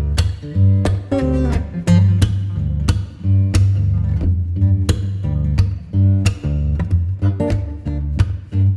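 Background instrumental music: plucked and strummed guitar over a steady bass line, with a regular beat.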